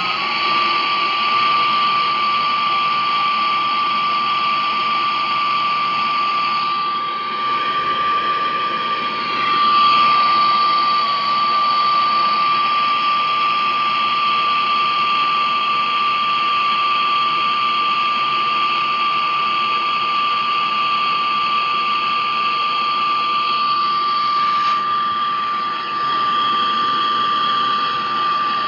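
Air conditioner leak: a steady, loud hiss with a high, constant whistle, typical of pressurised gas escaping through a small opening. The hiss changes character briefly about a third of the way in and again near the end, while the whistle holds.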